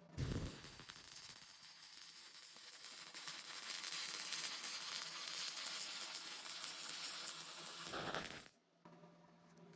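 MIG welding arc burning: a steady crackling, sizzling hiss as a bead is laid, lasting about eight seconds and cutting off suddenly when the trigger is released.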